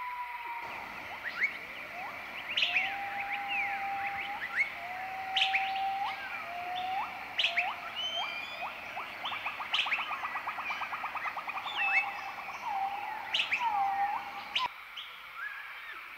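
Several birds calling and singing together. There are sharp downward-slurred whistles, repeated level whistles that end in an upward flick, and a fast, even trill in the middle. Near the end the chorus cuts off abruptly.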